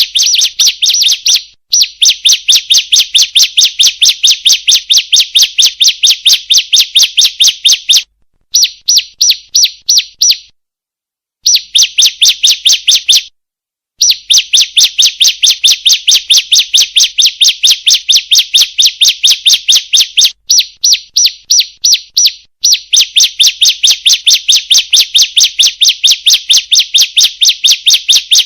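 Female ciblek (bar-winged prinia) calling: a fast string of sharp, high, evenly repeated chirps, several a second, in long runs broken by a few short pauses. This is a lure call, played to get caged ciblek to sing.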